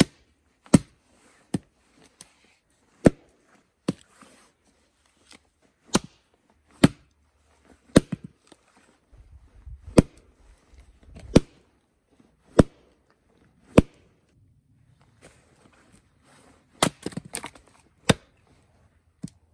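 A small camping axe striking and splitting short rounds of dry, hard spruce: sharp wooden chops at irregular intervals, roughly one a second, with a quick run of several blows near the end.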